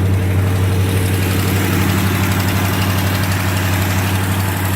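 The 1987 Jeep Grand Wagoneer's V8 engine idling with a steady low hum, running smoothly after recent mechanical work. A brighter hiss fills in from about a second in.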